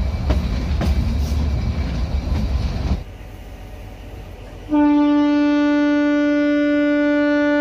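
Kalka–Shimla narrow-gauge toy train running on the rails: a low rumble with sharp clicks of the wheels over the track, which cuts off about three seconds in. After a quieter stretch, a train horn sounds a single long, steady note from just before five seconds in.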